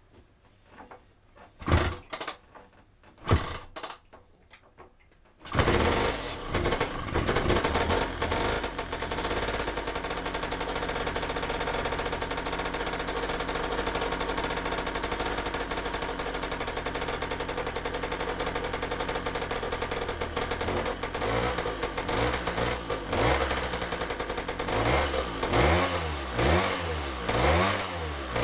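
Lambretta LI150's single-cylinder two-stroke engine: a couple of sharp knocks, then it fires about five seconds in and keeps running, showing that the electronic ignition now gives a spark. In the last few seconds the engine speed rises and falls again and again.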